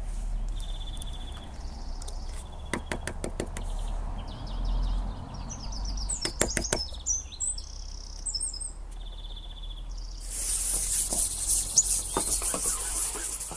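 Small songbirds singing, short repeated trills and chirps, with a few clusters of light knocks and clicks and a brief burst of hiss about ten seconds in.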